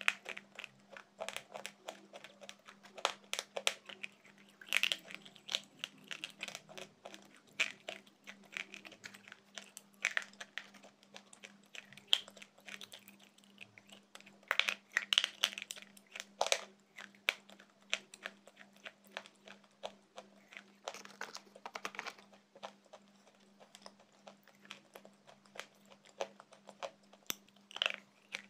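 Close-miked chewing of slate pencil pieces: a steady run of irregular, sharp, gritty crunches as the chalky sticks break between the teeth.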